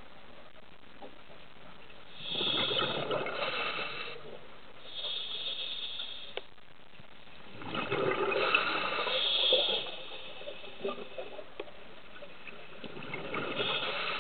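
Scuba diver breathing through a regulator underwater: three long bubbling exhalations about five seconds apart, with a shorter, quieter hiss between the first two.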